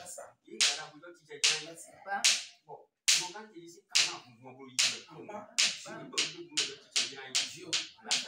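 Sharp, bright strikes, each with a short ringing tail, repeating about every second at first and then faster, about three a second, over a low voice speaking or praying.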